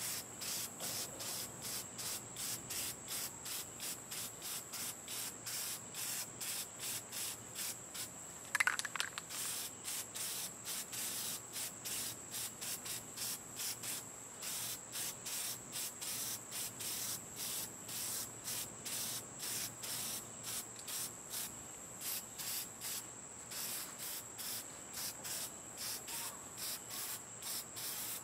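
Insects chirping in a fast, even pulse, about three chirps a second, over a constant high whine. Under it an aerosol spray-paint can hisses. A single short, sharper sound stands out about eight and a half seconds in.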